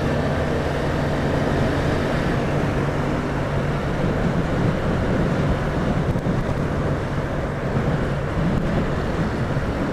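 Motorcycle engine running at a steady cruising speed, a constant low engine note under the even rush of wind over the microphone.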